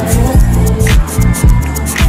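Loud music with a heavy bass beat and a sharp hit about once a second.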